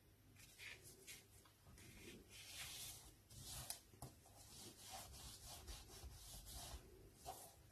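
Faint rustling and rubbing of a square sheet of A4-cut paper being folded by hand, fingers sliding the flap over and pressing along the crease in a string of soft swishes, with one small sharp tick a little over halfway through.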